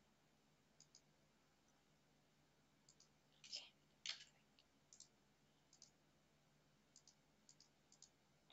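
Faint, scattered clicks of a computer mouse over near silence, about a dozen in all, the two loudest about three and a half and four seconds in.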